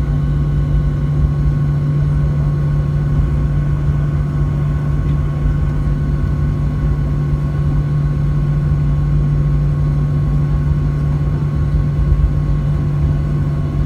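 Boeing 737-800 jet engines running at a steady setting, heard from inside the passenger cabin as a constant hum with a low rumble and a few fixed whining tones.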